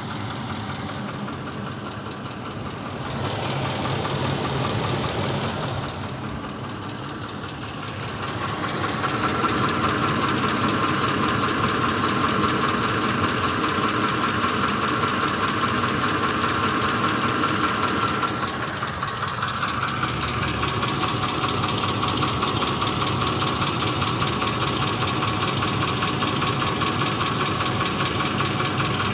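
Ford Triton 5.4 3V V8 engine running with a knock, revved in neutral. The revs rise briefly about three seconds in, then rise again and are held for about ten seconds before easing to a slightly lower steady speed.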